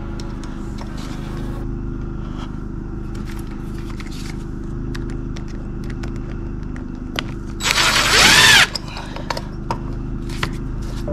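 Cordless drill/driver driving a screw through a steel plate into wood in one short run of just under a second, about eight seconds in, its motor whine rising and then falling. Light clicks and scrapes from handling the plate and screws come before and after.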